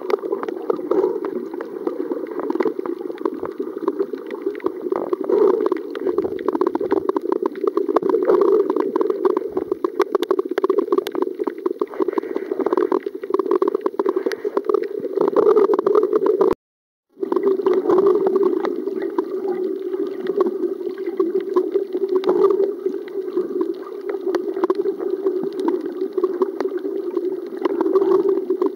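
Underwater sound picked up by a camera filming a coral reef: a steady, muffled rush of water with many small crackling clicks over it. The sound breaks off for a moment about halfway through.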